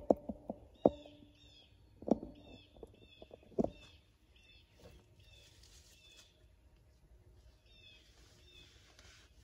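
A small songbird repeats a short chirped note over and over, a few times a second, in runs. In the first few seconds, sharp knocks and rustling from the phone being handled and moved are the loudest sounds.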